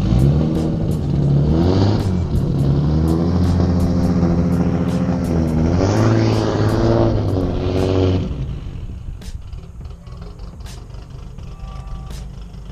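Lexus IS300's 2JZ-GE inline-six through a 3-inch exhaust, pulling away under acceleration with the revs climbing in two pulls, then dropping away about eight seconds in. It runs rough because the engine is still untuned.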